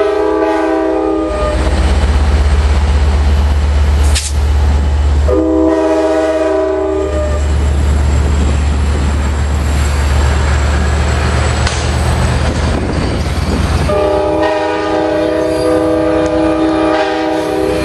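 Amtrak F59PHI diesel locomotive's air horn sounding a chord in three blasts: one ending about a second in, a two-second blast around the middle, and a long blast starting near the end. Between the blasts the locomotive's diesel engine rumbles low while the passing cars roll by, with a single sharp click about four seconds in.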